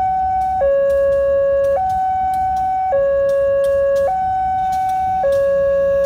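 Electronic two-tone warning alarm sounding continuously, switching between a higher and a lower steady tone about every 1.2 seconds.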